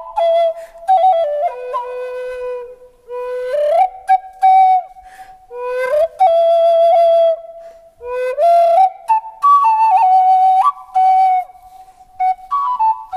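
Flute music: a slow melody of held notes, several of them sliding up into pitch, with short breaks between phrases.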